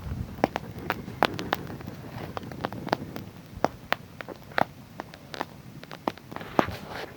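Wood fire crackling: irregular sharp pops and snaps, two or three a second, over a low rumble of burning.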